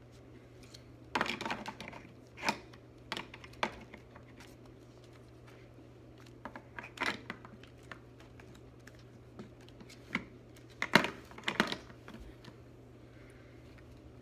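Large plastic toddler building blocks clicking and clattering as they are handled and pressed onto a plastic baseplate, in irregular knocks with the loudest pair about eleven seconds in.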